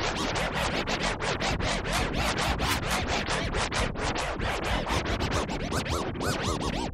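DJ record scratching in a hip-hop/rock remix: a fast run of back-and-forth scratches, several a second, with the mix's beat underneath.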